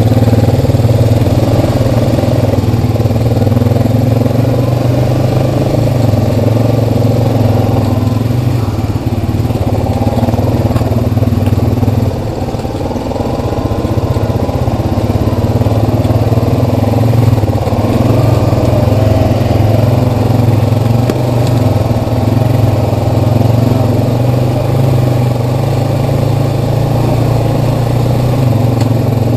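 2012 Honda Rancher 420's single-cylinder engine running as the ATV rides along a dirt trail at low speed. The throttle eases off briefly about twelve seconds in, then the engine picks back up.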